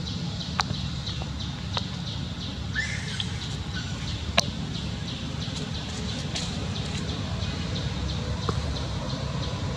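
Outdoor ambience: a steady low rumble with a few sharp clicks, and a brief chirping call about three seconds in.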